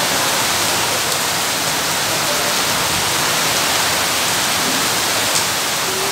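Heavy rain pouring steadily onto a wet street, a continuous even hiss, with a single brief tick about five seconds in.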